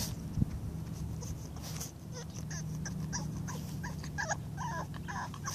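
Boxer puppies play-fighting, giving many short high-pitched yips and whines from about two seconds in, coming thickest near the end, over a low steady hum. A single knock sounds about half a second in.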